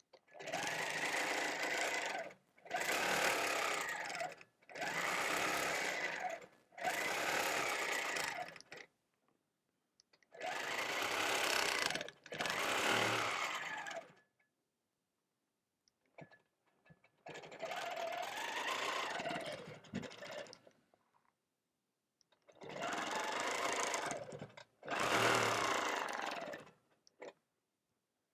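Longarm quilting machine stitching in short runs of about two seconds each, stopping and starting about nine times, with a longer pause partway through.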